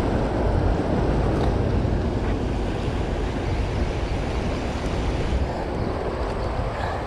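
Steady rush of fast, churning tailwater released by a dam's generators, with wind buffeting the microphone.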